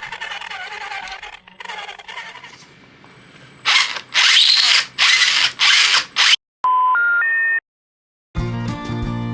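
Electric motor and gearbox of a Tamiya CC-02 RC crawler whining with a wavering pitch, the noise coming from worn spur and pinion gears; then four loud harsh bursts of noise, three short electronic beeps stepping up in pitch, and music starting near the end.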